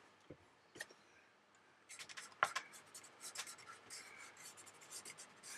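Fingertip rubbing dry pastel chalk onto the painted plastic wing of a scale model aircraft, fading the decals. The faint, dry scratching strokes begin about two seconds in, after a near-silent start with a single light tick.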